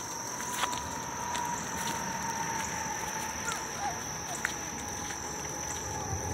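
Steady high-pitched drone of insects over a low, even background rumble, with a few faint clicks.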